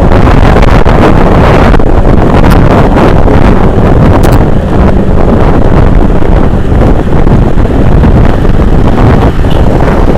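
Loud, steady wind buffeting on the microphone of a camera mounted low on a moving motorcycle, with the rumble of the ride underneath.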